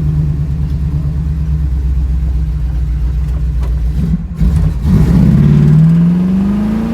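1972 Camaro RS engine heard from inside the car, running steadily, then floored about four seconds in: it stumbles briefly, almost dying, then picks up and revs with its pitch rising steadily.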